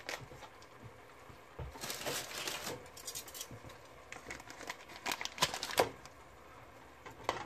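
Brisket pan sauce simmering faintly in an aluminium pot, with a brief rustle of handling about two seconds in. Around five seconds in come a few sharp clicks of metal tongs against the pot as a pat of butter is dropped into the sauce, and one more click near the end.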